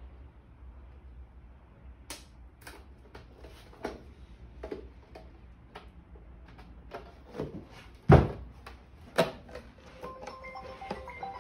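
Clicks and knocks of a double-pane RV window glass unit being handled and worked apart by hand, with a heavy thump about eight seconds in as the glass is laid down on a carpeted bench. Background music with mallet-like notes comes in near the end.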